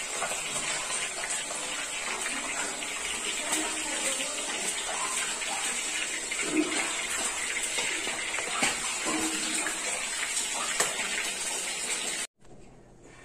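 Fish pieces frying in hot oil: a steady sizzle with scattered small crackles, cutting off suddenly near the end.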